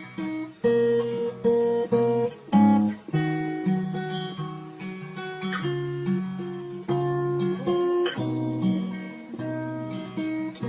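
Slowed-down acoustic guitar music with an 8D panning effect: chords plucked and left ringing in a repeating pattern, without vocals.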